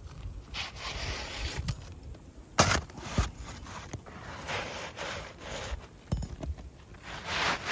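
Hand work on roof shingles during a repair: repeated scraping and rubbing, with a sharp knock about two and a half seconds in and another about six seconds in.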